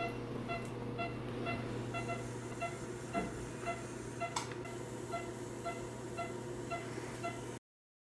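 Anaesthesia patient monitor beeping in time with the anaesthetised cat's heartbeat, a short pitched beep about two to three times a second, over a steady low hum. The beeping cuts off abruptly near the end.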